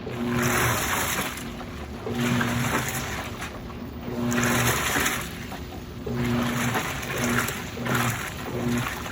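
Midea 13 kg washing machine agitating a load of sheets in water. The motor hums in short bursts as the drum or agitator turns back and forth, with a swish of water about every two seconds. This is the wash stage, before draining.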